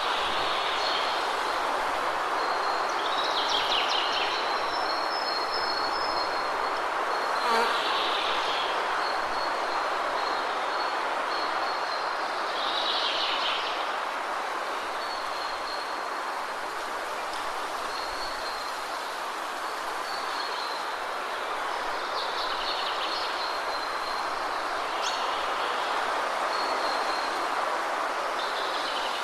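Steady rush of a waterfall with small birds chirping over it in short bursts every few seconds, and a thin high trill that comes and goes. A single sharp click about seven and a half seconds in.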